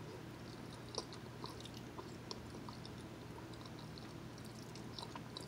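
Faint mouth sounds of a person chewing a forkful of fettuccine alfredo: soft wet smacks and small clicks, scattered and irregular.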